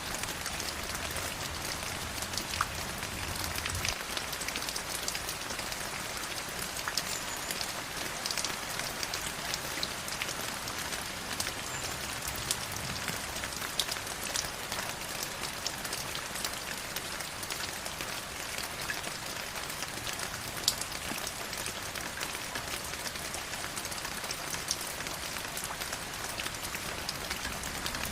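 Steady rush and trickle of a flowing river, full of small splashing droplet ticks.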